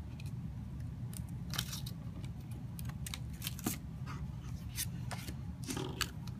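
Paper and adhesive handling: glimmer-paper stars peeled off a roll of glue dots and pressed onto a card, heard as scattered light crackles and taps over a low steady hum.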